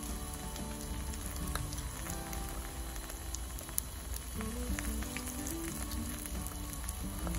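Egg-battered stuffed chayotes frying in a pan of hot oil: a steady sizzle with scattered small crackles. Soft background music plays under it.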